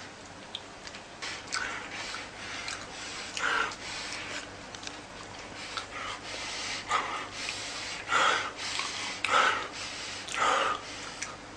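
A person sniffing and snorting in short noisy bursts, about six times, the louder ones in the second half.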